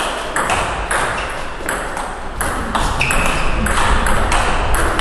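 Table tennis rally: the ball clicks back and forth as it bounces on the table and is struck by the rubber-faced paddles, in a steady quick rhythm of about three clicks a second.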